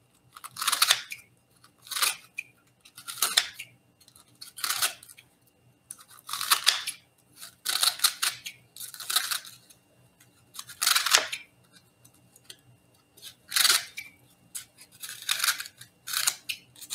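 Pampered Chef salad chopper's two blades snipping through romaine lettuce in a glass mixing bowl: about a dozen crisp crunching cuts, one every second or so.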